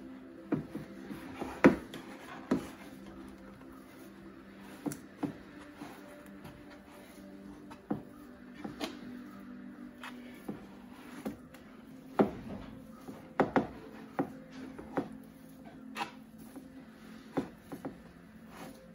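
Hands kneading and squeezing a mixture of grated raw and mashed boiled potatoes in a black enamel roasting pan, with irregular sharp knocks and clicks of hands and pan against the enamel and counter. A faint steady hum sits underneath.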